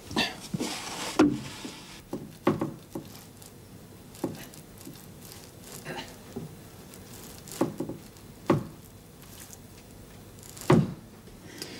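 Irregular wooden knocks and thumps as a barn floor trapdoor, weighted down by a wooden barrel, is pushed up from below. The loudest thump comes near the end.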